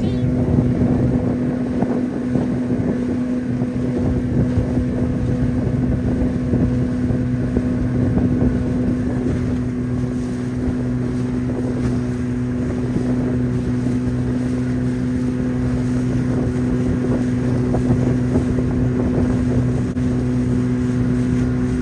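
CraigCat's outboard motor running steadily under way, holding an even pitch, with wind buffeting the microphone.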